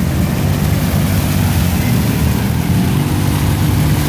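An ATV engine running hard at steady revs as its tyres churn through deep mud and water; the engine note steps up about three seconds in.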